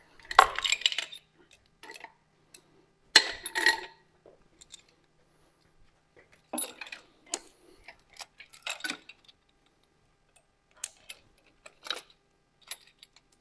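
Steel lifting chains and hooks of an engine hoist's load leveler clinking and rattling as they are handled and hooked up, in several short bursts of clatter, the loudest about half a second in and about three seconds in.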